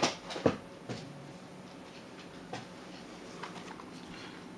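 A few light clicks and knocks from a plastic router and its power plug being handled, the sharpest about half a second in, with faint single clicks later over low room noise.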